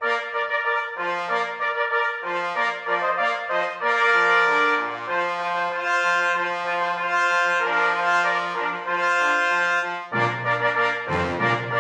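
Brass fanfare music playing a slow, stately theme of held notes. Deeper notes join about ten seconds in.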